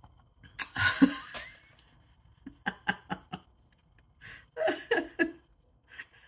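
A woman laughing in short, evenly spaced bursts, with a louder first burst about a second in.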